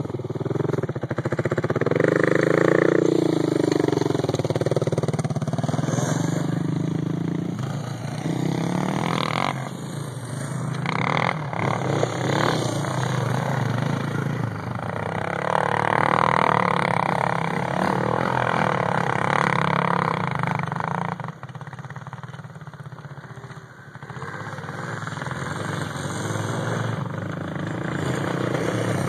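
Quad ATV engine running and revving under riding, swelling louder twice and easing off in between.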